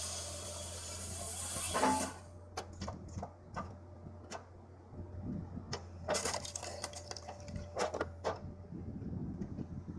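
Wood-processing machinery over a steady low engine hum: a loud hiss from the machine stops about two seconds in. After that come scattered sharp knocks, cracks and clinks of wood.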